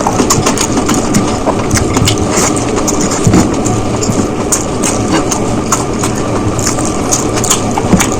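Close-miked eating sounds: someone chewing a mouthful of biryani, with many quick, irregular sharp clicks over a steady rushing background.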